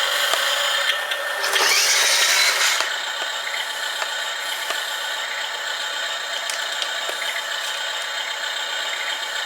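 Small electric motor and gearbox of a model dump truck whining steadily as it drives, with a louder grinding stretch from about one and a half to three seconds in.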